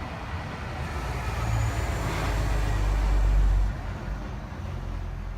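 A vehicle passing close by: a low rumble with tyre noise that builds over a couple of seconds, then drops off sharply about four seconds in.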